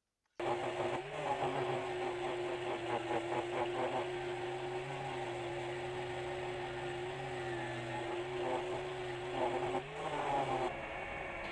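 Electric motor of a workshop tool running steadily with a steady hum, cutting in abruptly about half a second in, with stretches of fast rattling and a brief change just before the end.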